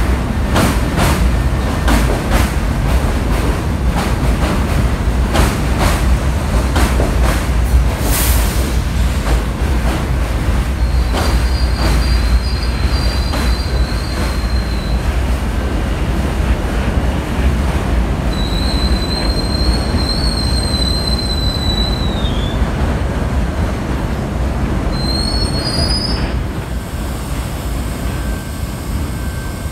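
New York City Subway R68A train rolling slowly through a station without stopping, with a steady rumble. Its wheels clack over rail joints through roughly the first ten seconds, and several high wheel squeals come and go in the second half.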